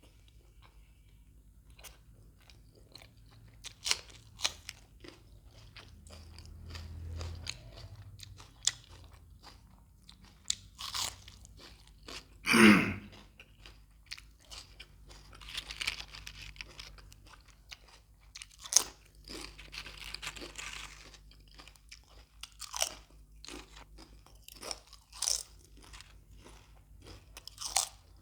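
Close-miked eating: a person bites and chews crunchy raw vegetables with wet mouth sounds, in irregular crisp crunches. About halfway through there is one louder, longer mouth sound.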